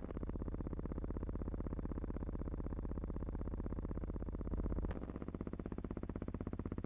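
Steady buzzing drone with a rapid, even flutter. Its tone shifts abruptly about five seconds in.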